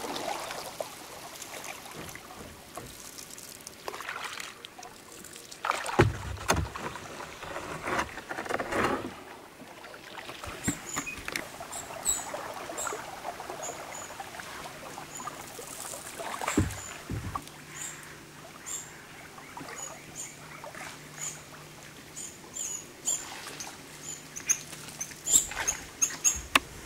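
A small boat on a river: water splashing and sloshing in irregular strokes during the first ten seconds. After that come many short high chirps, and about halfway through a faint steady low hum sets in.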